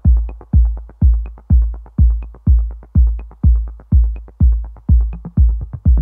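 Electronic dance music, drums only: a deep kick drum on every beat, about two a second, with quick ticking hits between the beats.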